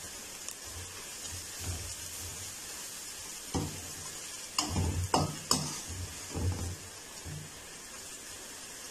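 Onions, green chilli and dry spices sizzling in oil in an aluminium kadhai while a metal spoon stirs and scrapes through them, the masala being fried (bhuna). A handful of sharper scrapes and knocks of the spoon against the pan come in the middle.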